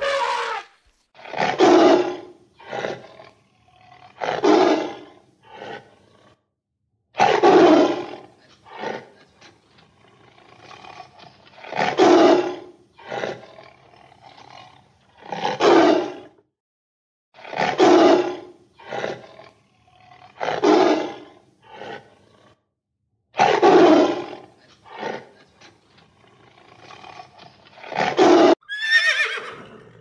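Tiger roaring again and again, a full roar every three seconds or so, each followed by one or two shorter grunts. Near the end comes a short horse whinny.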